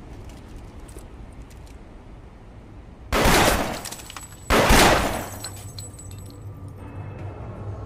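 Two pistol shots about a second and a half apart, each a sudden crack with a ringing tail that dies away over most of a second. Underneath is a steady low rumble of a train carriage.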